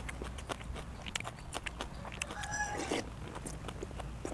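Close-up eating sounds: wet chewing and lip-smacking, a steady run of small sharp clicks as a mouthful of soft chicken egg yolks is chewed. A brief higher-pitched sound lasting under a second comes about two and a half seconds in.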